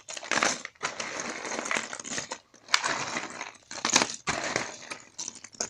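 Rustling and clattering of a jigsaw puzzle box and its packaging being handled, in uneven bursts with a few sharp clicks.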